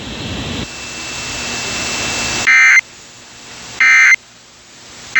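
Emergency Alert System end-of-message data bursts: short, shrill digital warbling tones, two of them about one and a third seconds apart, with a third starting right at the end. They come after a hiss that rises for about two and a half seconds, and a hiss also lies between the bursts. The bursts mark the end of the alert.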